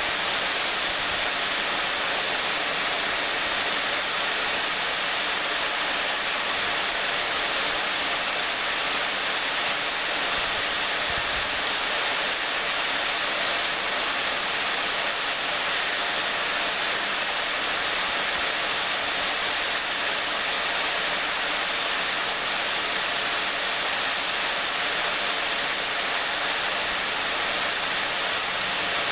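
Waterfall pouring steadily, a constant rushing hiss of falling water with no change in level.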